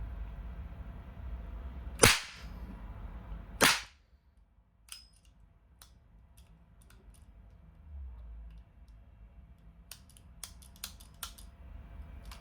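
Toy revolver firing two loud, sharp shots about a second and a half apart, followed by a scatter of light clicks.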